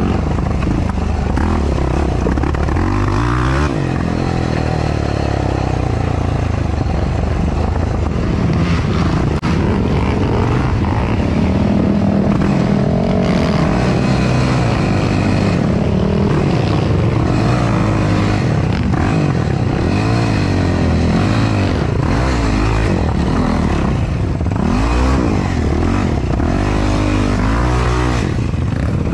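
Yamaha YFZ450R ATV's single-cylinder four-stroke engine running under racing load, its pitch rising and falling again and again as the throttle is worked.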